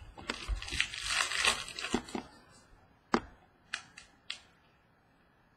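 Baseball card pack wrapper crinkling and tearing open for about two seconds, then a few sharp clicks as the cards are handled.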